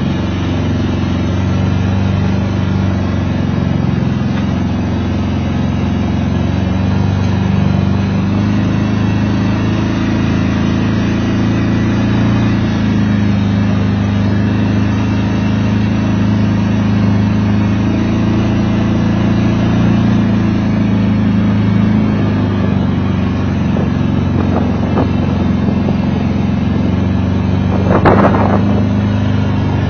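Four-wheeler (ATV) engine running steadily at low trail speed, its pitch rising and falling a little with the throttle. A brief, louder knock near the end.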